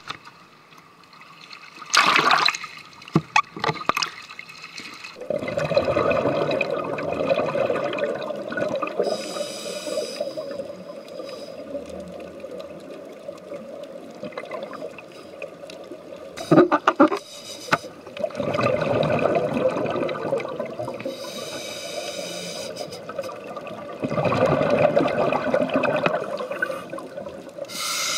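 Scuba breathing heard underwater: a splash about two seconds in, then exhaled bubbles gurgling from a diver's regulator in long bursts every several seconds, with a fainter hiss of inhalation between them.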